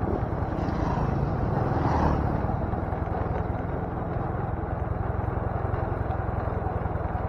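Motorcycle engine running steadily while riding. About two seconds in there is a brief swell as an oncoming motorcycle passes.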